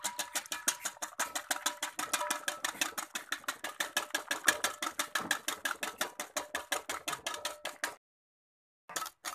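Eggs being beaten in a stainless steel bowl: fast, even clicking strokes of the utensil against the metal, about six or seven a second, with the bowl ringing faintly. The beating stops for about a second near the end, then starts again.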